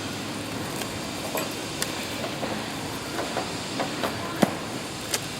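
A string of sharp knocks and clinks from tools and parts being handled on a drilling rig, over a steady background noise. The loudest knock comes about four and a half seconds in, with another just after.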